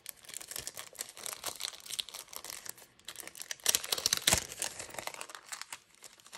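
Clear cellophane sleeve crinkling and crackling as it is handled and its sealed flap is pulled open, loudest about four seconds in.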